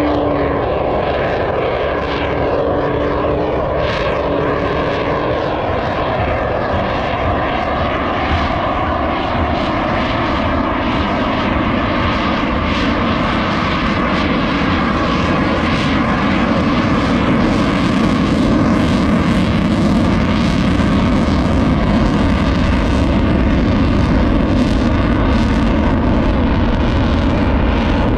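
F-35 Lightning II jet flying past, its single afterburning turbofan engine a loud, steady rumble that grows louder over the second half.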